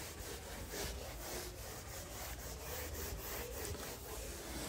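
Whiteboard eraser rubbed across a whiteboard in rapid back-and-forth strokes, a repeated dry swishing.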